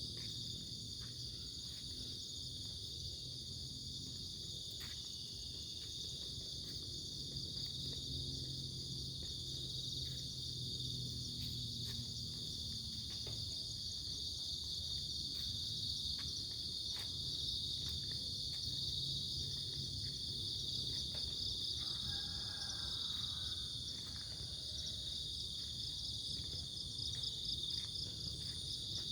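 Crickets chirring in a steady, unbroken high-pitched chorus over a low, even rush of flowing river water.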